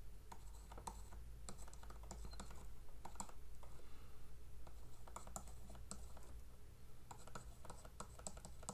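Faint, irregular clicks and taps, some in quick little runs, from a stylus writing on a tablet screen.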